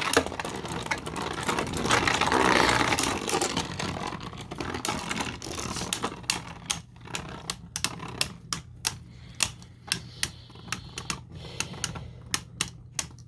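Beyblade spinning tops grinding and rattling in a plastic stadium, fading over the first few seconds. This gives way to a run of sharp, irregular plastic clicks, a few each second.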